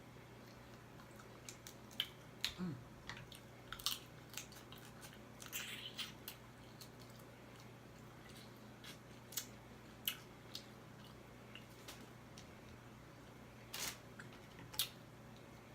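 Crab legs being picked apart and eaten close to the microphone: scattered sharp clicks and crackles of shell and wet mouth sounds, with a brief low falling squeak about two and a half seconds in.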